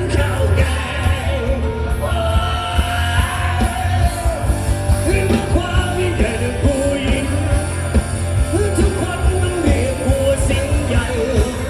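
Live band playing with a singer, heavy bass and a steady drum beat.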